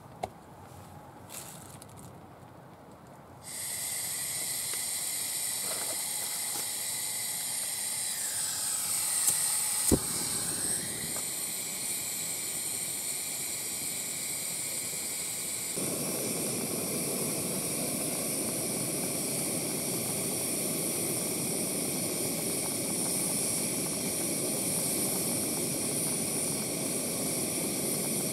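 Portable gas camping stove burner hissing steadily under a pan of water. The hiss comes on suddenly about three seconds in, a sharp click comes about ten seconds in, and from about sixteen seconds a lower rushing roar joins it.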